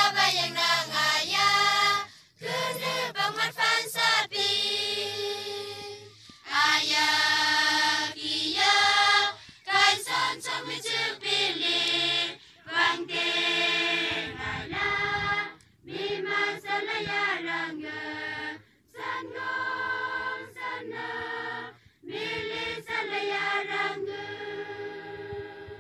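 A choir of young voices, girls and boys, singing a song together without instruments, in sung phrases broken by short pauses for breath. The song ends near the end.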